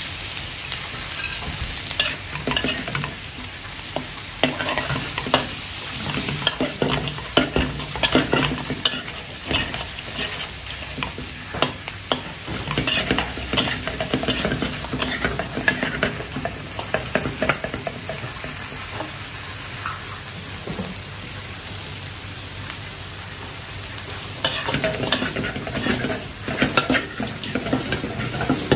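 Shell-on prawns frying in butter in a wok, sizzling steadily, while a metal spatula and ladle scrape and knock against the pan as they are stirred and tossed. The scraping is busiest in the first half and again near the end, with a calmer stretch of mostly sizzle about two-thirds through.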